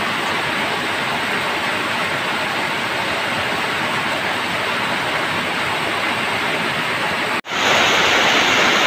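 Heavy rain pouring down in a steady, dense hiss. About seven seconds in it breaks off for an instant and comes back louder and brighter.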